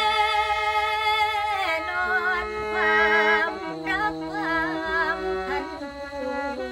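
A woman singing lam, the Isan Lao folk song, in a wavering, ornamented line, over a khaen, the bamboo free-reed mouth organ, holding steady chords and drones beneath her.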